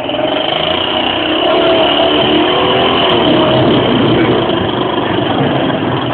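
Competition rock-crawling buggy's engine revving hard and held at high revs under load as it climbs a waterfall, its pitch wavering up and down with the throttle.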